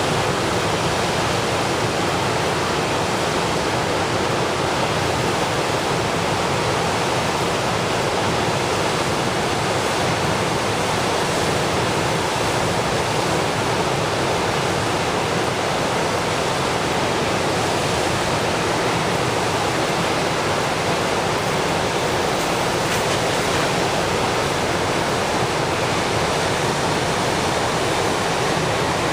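The Red Deer River in flood: fast, high water rushing past in a steady, loud wash.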